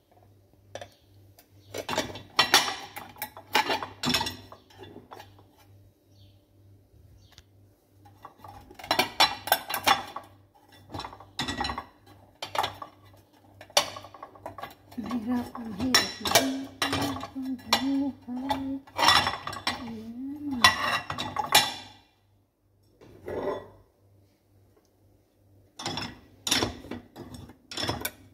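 Ceramic plates, bowls and cutlery clattering and clinking as they are set into dishwasher racks, in several bursts of handling with short pauses between.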